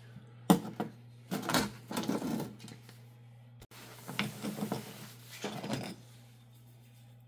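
Freshly cut slabs of jasper and chalcedony clacking and scraping against each other and the metal grate table of a lapidary rock saw as they are set down and picked up: a sharp clack about half a second in, then bursts of clinks and scrapes around two seconds and again between four and six seconds, over a low steady hum.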